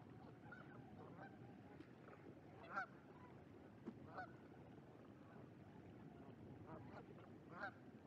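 Distant geese honking: a short run of calls about three seconds in and another near the end, with a few fainter calls between, over a faint steady background rush.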